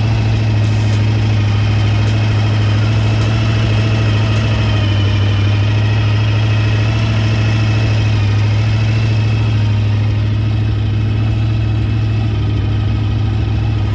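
Jet boat engine running steadily, a loud, even low hum that holds one pitch throughout.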